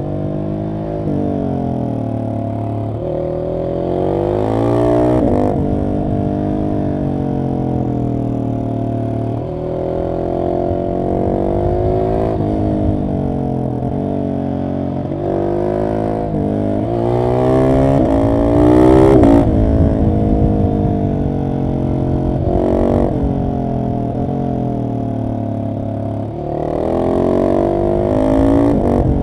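Husqvarna 701 SM's single-cylinder engine through an Arrow exhaust with the catalytic converter removed. It is ridden hard: the revs climb and drop again and again through the gears, with several sharp cracks where the pitch breaks off.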